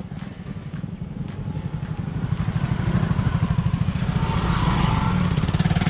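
Motorcycle engine running as the bike rides up and passes close by, growing louder over the first three seconds and then staying loud, with a fast, even beat of the engine firing.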